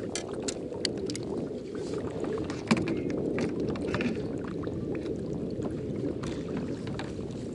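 Water sloshing against a fishing kayak, with a steady low rumble of water and wind, scattered small clicks and splashes, and one sharper knock on the hull about three seconds in.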